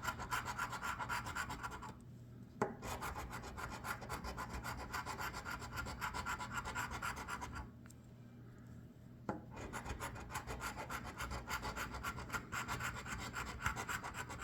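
Scratch-off lottery ticket being scratched off in quick, repeated rubbing strokes, with two short pauses.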